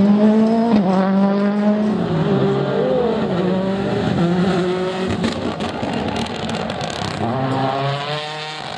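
A World Rally car's turbocharged engine accelerating hard, its pitch climbing and dropping back at each upshift, then fading as the car moves away. A quick series of sharp cracks about five to seven seconds in, and another climb in revs near the end.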